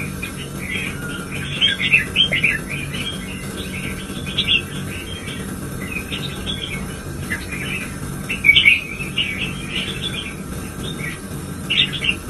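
Red-whiskered bulbul singing short, bright warbled phrases again and again, a lively song used to rouse other bulbuls to sing, over a steady low hum.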